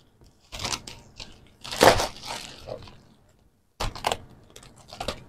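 Plastic parcel packaging crinkling and tearing as it is ripped open by hand, in three or four short bursts.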